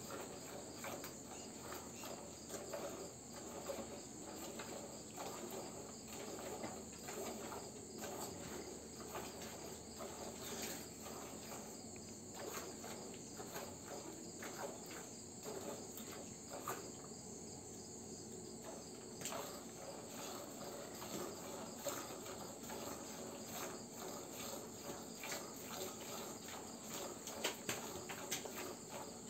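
Crickets chirping steadily, with repeated squirts of milk from hand-milking a cow hitting the frothy milk in a plastic bucket.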